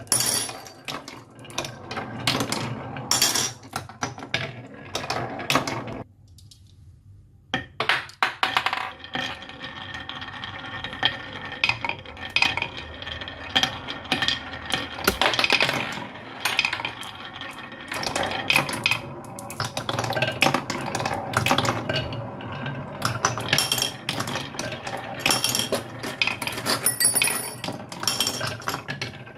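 Small hard toy pieces clattering and clinking as they roll down a toy slope track, in a dense stream of quick clicks with a short lull about six seconds in.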